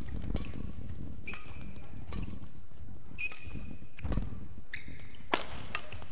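Badminton rally: rackets striking the shuttlecock about once a second, six or seven sharp hits, with short high squeaks from shoes on the court mat between some of them.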